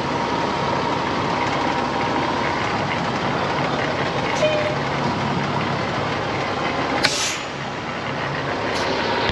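Heavy truck engine running steadily, with a short hiss about seven seconds in.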